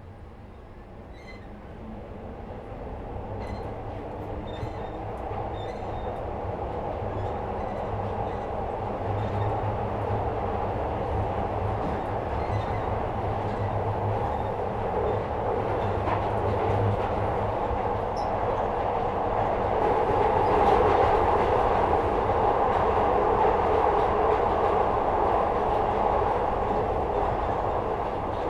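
Glasgow Subway 2nd-generation Metro-Cammell train heard from inside the carriage, pulling away and gathering speed. The rumble of wheels and running gear grows steadily louder over the first several seconds, then runs on evenly through the tunnel, loudest about two-thirds of the way through.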